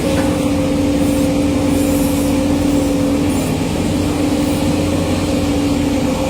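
JCB JS205 tracked excavator running steadily: a constant diesel drone with a steady whine held at one pitch.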